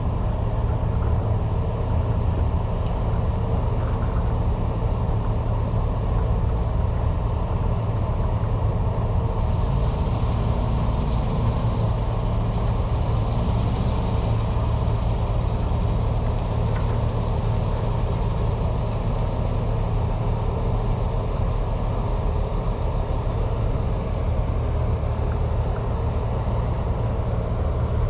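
Heavy diesel engine running steadily at a constant speed, a deep even hum. A faint hiss swells and fades in the middle.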